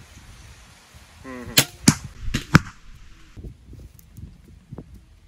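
A crossbow being shot: four sharp snaps within about a second, from the string's release and the bolt striking.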